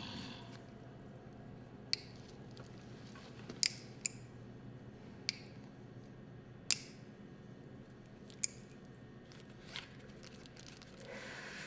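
A cigarette lighter being struck again and again: about seven sharp clicks at uneven intervals, with a soft rustle near the end.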